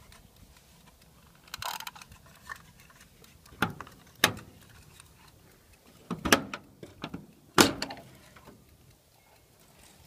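Hand-handling noises: a short rustle, then a few sharp separate clicks and knocks, the loudest about seven and a half seconds in, from the wind-up egg timer and the generator enclosure's latch panel being handled. No engine is running.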